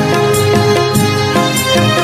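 Karaoke backing track of a Malayalam Christmas carol playing an instrumental interlude between verses, with sustained melody notes over a steady beat.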